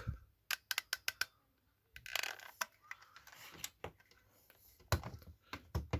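Quick run of sharp clicks, then a brief rustle and a few knocks: a hot glue gun and plastic pump parts being handled while gluing.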